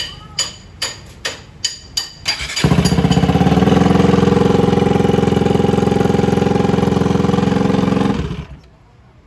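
A run of sharp clicks, then the freshly rebuilt Bajaj Pulsar RS 200 single-cylinder engine fires and runs steadily and loudly for about five seconds before it is switched off. This is its first start after the overhaul, run with no silencer fitted.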